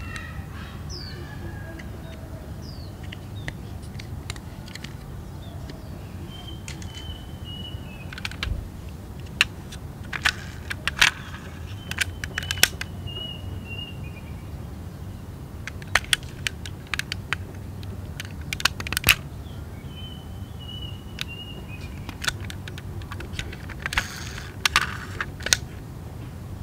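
Small clicks and taps from an orange toy SUV being handled, its doors swung open and clicked shut, coming in short clusters over a steady low hum.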